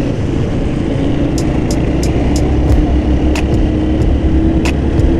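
Motorcycle riding on a wet road, heard from the bike: a steady engine hum over a loud wind rumble on the microphone, with a scatter of short, sharp ticks from about a second and a half in.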